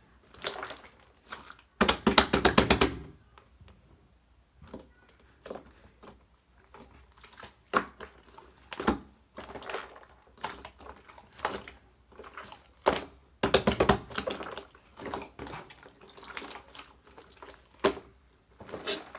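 Clear slime being mixed by hand, with sticky clicks and crackles as it is squeezed, folded and stretched. Scattered single clicks, with two dense bursts of rapid clicking, about two seconds in and again about two-thirds of the way through.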